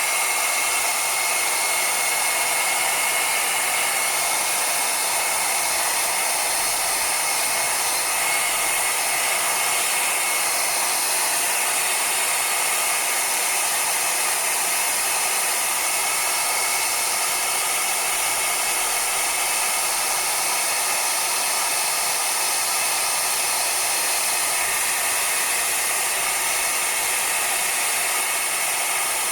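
Hot air rework gun blowing steadily: a loud, even airy hiss with a faint high whine on top. It is heating a phone battery to loosen it before prying it out.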